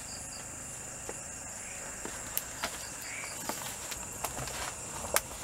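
Footsteps crunching through dry leaves and undergrowth, with several sharp snaps and cracks in the second half, the loudest near the end. Under them a steady high-pitched chorus of night insects such as crickets.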